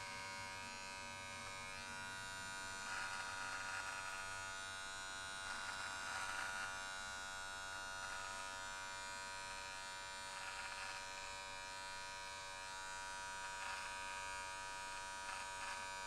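Wahl Magic Clip cordless hair clippers running with a steady buzz as they trim a beard under the chin, with short rasps every few seconds as the blades cut through the hair.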